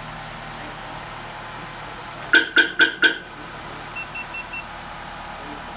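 2009 Nissan Rogue idling on remote start. About two seconds in come four quick, loud, sharp chirps. Just after them, four short high beeps come from the Viper 5305V two-way pager remote.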